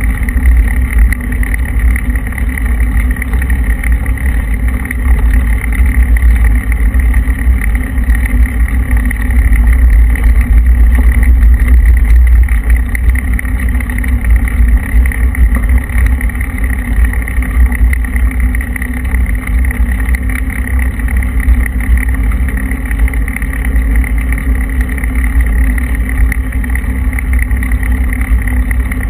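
Steady wind rumble on the microphone of a camera riding on a moving bicycle, mixed with tyre noise from the rough, unfinished road surface.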